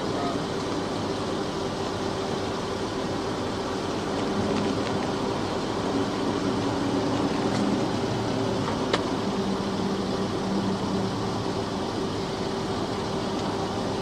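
Steady noise of an idling car and an air-conditioning fan, with a constant tone running through it. A single sharp click about nine seconds in.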